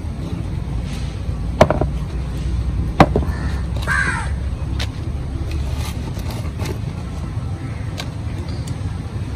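A bird caws once about four seconds in, over a steady low rumble, with two sharp knocks just before it.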